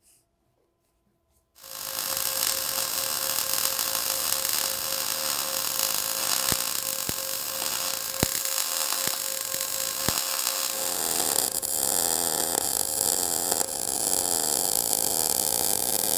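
MIG welding arc from a Lincoln Power MIG 260 running 0.035-inch ER70S-6 wire under 75/25 argon/CO2 shielding gas at 18.5 volts and 200 inches per minute on 5/16-inch steel. The arc strikes about a second and a half in and runs steadily, with a few sharper snaps near the middle.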